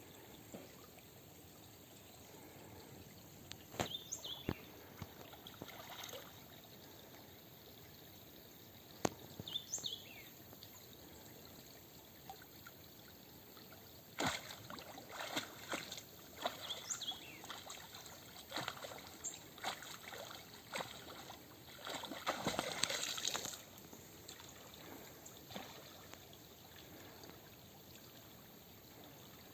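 River water trickling and flowing steadily, with scattered sharp clicks and knocks that come thickest in the middle and end in a short noisier stretch, plus a few brief high chirps.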